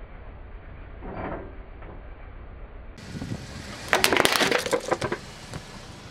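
A car tyre rolling over an upturned yellow plastic bowl, which cracks and shatters in a quick run of sharp snaps lasting about a second, about four seconds in.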